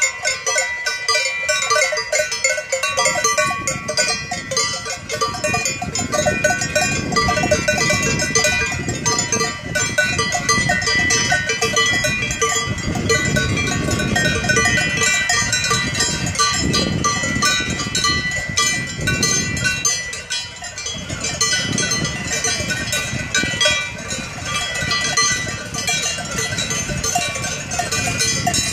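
Many cowbells clanging and ringing together, unevenly and without a break, on a herd of cows walking along.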